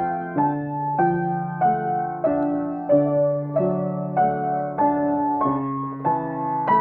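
Acoustic piano played in a slow, even improvisation: notes and chords struck a little under twice a second, each ringing and fading into the next.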